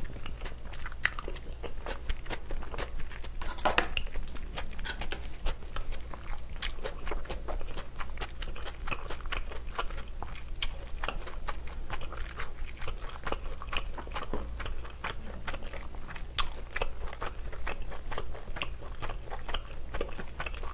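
Close-miked chewing of spaghetti and meatball in tomato sauce: many soft, wet mouth clicks and smacks in an uneven stream.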